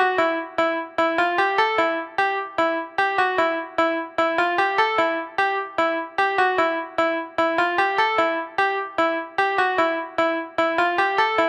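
Phone ringtone: a fast melody of ringing, piano-like keyboard notes, the same short phrase repeating over and over.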